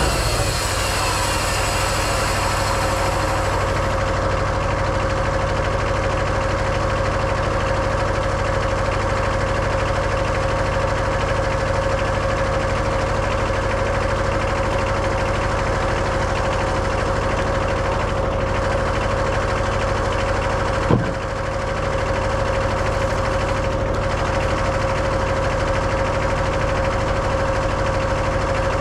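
Wood-Mizer LT15 sawmill's Kohler 17 hp diesel engine running steadily. About three quarters of the way through there is one sharp knock, and the level dips briefly.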